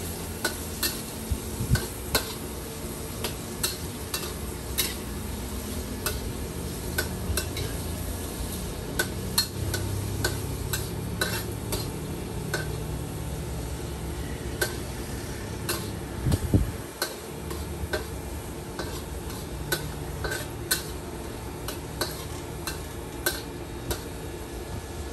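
Metal spatula clanking and scraping against a wok as noodles are stir-fried, with sharp clanks every second or so over a steady low rumble. One louder thud comes about sixteen seconds in.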